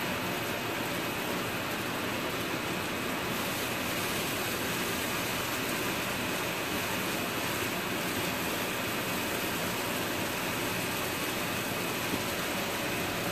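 Over-the-stove range-hood exhaust fan running with a steady rushing noise and a thin high tone in it, mixed with black beans simmering in a skillet as their liquid cooks down.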